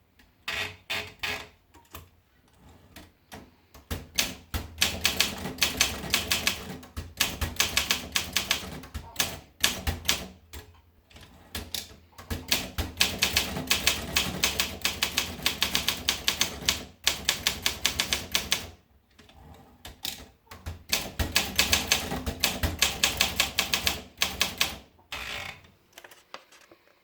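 Olympia SM7 manual portable typewriter being typed on: fast runs of keystrikes, several a second, broken every few seconds by short pauses.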